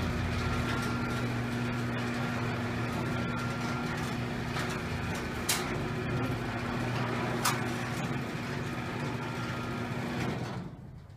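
Electric garage door motor, switched on through a relay, running steadily with a constant hum as the door opens, then stopping near the end. A couple of sharp clicks in the middle.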